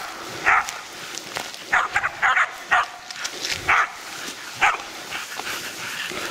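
Pig dogs barking at a wild boar they are holding at bay (bailing it): about eight short, loud barks at irregular intervals, some in quick succession.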